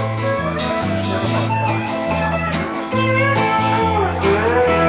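A song playing: a guitar-led instrumental passage over a bass line that steps to a new note about every half second, with bending melody notes above.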